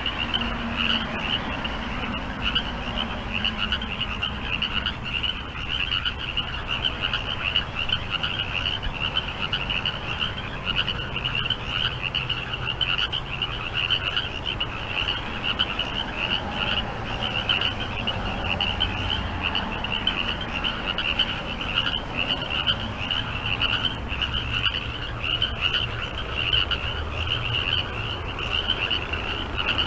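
A chorus of frogs calling without a break: a dense, high-pitched pulsing chorus over lower croaks, with a low steady rumble underneath.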